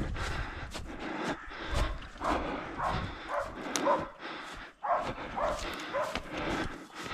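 Hunting dogs barking in a run of short barks, about two a second, from about two seconds in, with footsteps crunching through snow.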